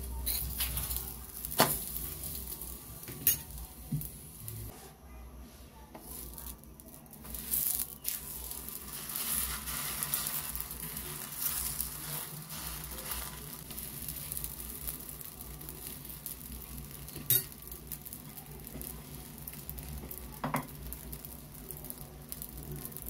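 Carrot chapati cooking on a hot flat pan, with a steady faint sizzle and a few sharp clicks of a metal spatula against the pan.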